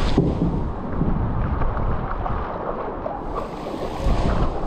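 Typhoon wind buffeting the microphone, a continuous low rumbling rush of noise that swells in gusts at the start and again about four seconds in.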